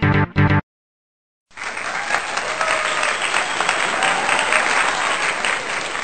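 A pulsing electronic music beat cuts off abruptly, and after about a second of silence a crowd applauds, dense and steady.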